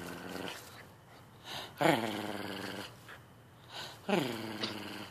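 A puppy growling: two drawn-out growls about two and four seconds in, each starting high and falling in pitch, after a softer one at the start.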